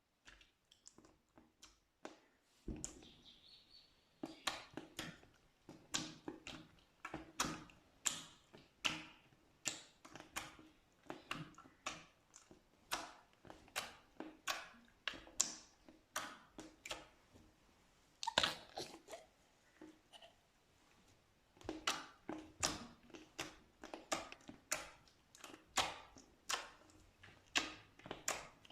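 Slime being squeezed and worked by hand, giving a run of wet clicks and pops, two or three a second, with a short pause past the middle.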